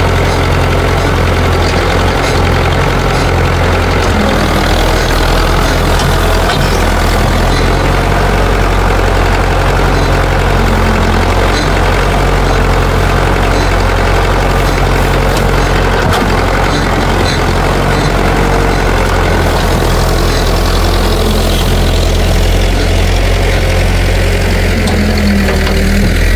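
International B275 four-cylinder diesel tractor engine running steadily and close by as the tractor works its way out of a muddy low spot.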